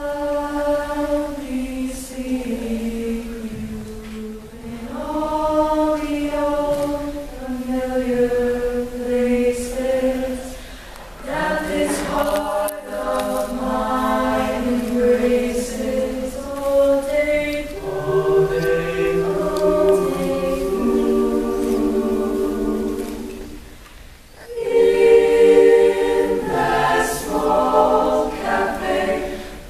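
Mixed choir of men's and women's voices singing a cappella in close harmony: slow, sustained phrases with short breaks between them.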